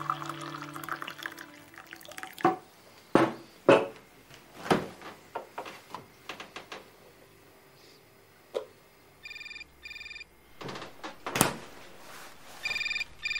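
Music fading out, then a run of irregular light clicks and knocks. A telephone then rings twice with a double-pulse ring, about nine seconds in and again near the end.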